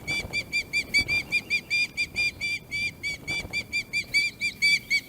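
Osprey calling: a rapid, unbroken series of high-pitched whistled chirps, about five a second.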